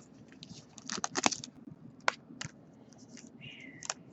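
Trading cards and plastic card sleeves being handled: scattered light clicks and taps, loudest about a second in, and a short swish near the end.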